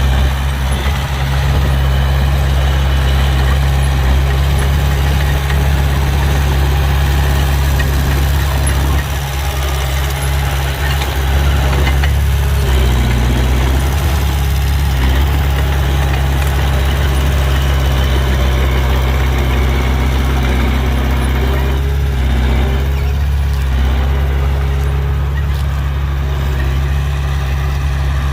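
An engine running steadily at idle, a continuous low drone.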